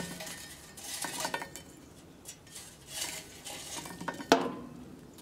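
Glowing charcoal briquettes scraping and clinking on the cast-iron lid of a 10-inch Dutch oven as they are set in place with tongs and tipped from a chimney starter, with a sharp knock about four seconds in.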